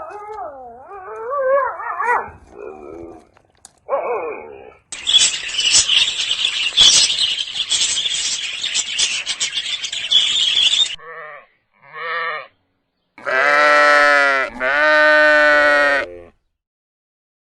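A series of separate animal calls, one after another. A wavering pitched call comes first, then a dense noisy stretch of several seconds, then a few short calls. It ends with two long bleats, each over a second long.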